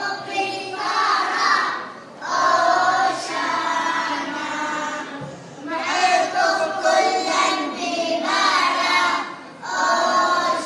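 A young girl singing a song into a handheld microphone, with other children singing along. The phrases break off briefly about every three to four seconds.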